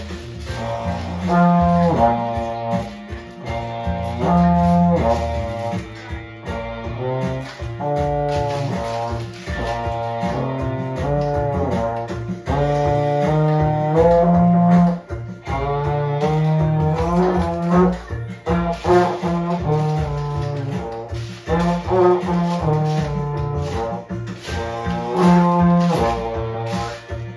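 Euphonium playing a medley of children's songs, one sustained note after another, with a toy maraca shaken in a steady rhythm along with it.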